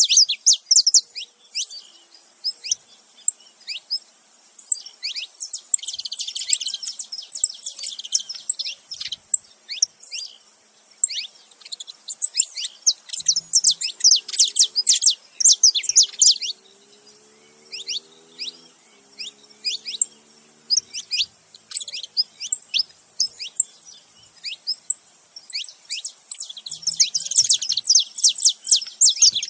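Saffron finches, a male and a female, calling together: quick, sharp downward chirps coming in dense rapid runs with sparser stretches between.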